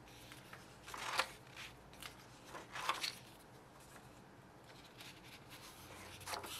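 Paper pages of a spiral-bound workbook turned by hand: faint, brief rustling swishes, about a second in, about three seconds in, and again near six seconds.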